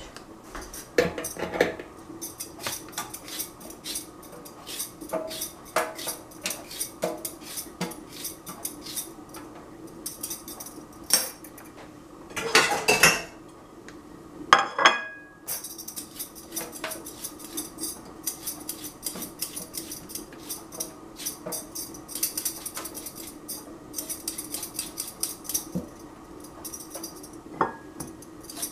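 Cucumbers being peeled with a vegetable peeler over a steel sink: a run of quick, short scraping strokes, a few a second, over a steady low hum. About halfway through come two louder clatters of the china plate being handled.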